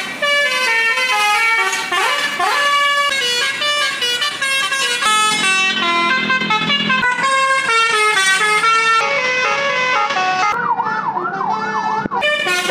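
Tourist bus's telolet horn, a multi-trumpet musical air horn, playing a tune of stepping notes, with a rapid up-and-down wavering wail near the end.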